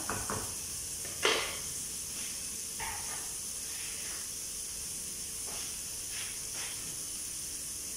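Chicken skewers sizzling in a ridged grill pan, a steady high hiss, with one sharp knock about a second in and a few faint knocks later on.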